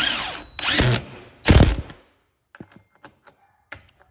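Power drill running in three short bursts, driving screws for the door lock, followed by a few faint clicks of handling.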